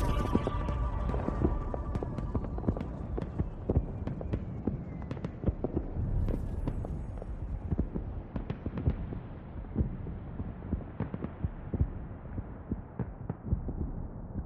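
A low rumble with irregular crackles and soft thumps, gradually fading away: a non-musical outro effect at the tail of a pop track, with no melody or beat.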